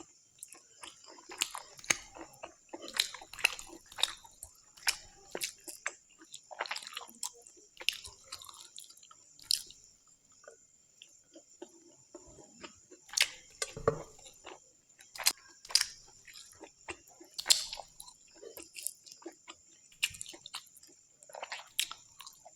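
Close-up chewing and wet mouth sounds of someone eating curry and rice, with irregular smacks and clicks several times a second.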